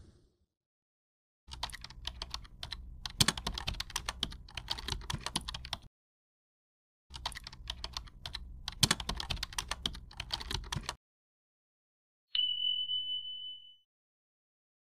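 Keyboard-typing sound effect: two runs of rapid key clicks, the first starting about a second and a half in and lasting about four seconds, the second from about seven to eleven seconds in. Near the end a single bright ding rings for about a second and a half, marking the correct answer.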